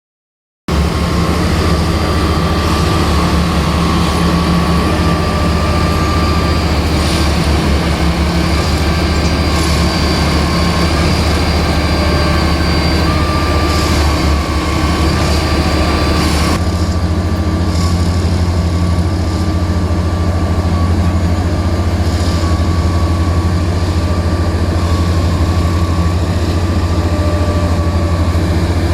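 Plasser & Theurer rail track maintenance machine running: a steady, heavy diesel drone with a thin high whine over it. About two-thirds of the way through, the higher sounds drop away and the low drone carries on.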